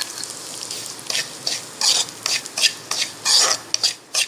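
Spatula stirring and scraping wheat semolina roasting in ghee in a kadai: repeated scrapes, about two to three a second, over a light sizzle.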